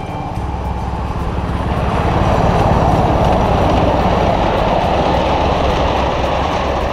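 Miniature 7¼-inch gauge ride-on train passing close by, its wheels rumbling and clacking over the rails. The sound swells to its loudest about two to three seconds in and eases off as the last cars go by.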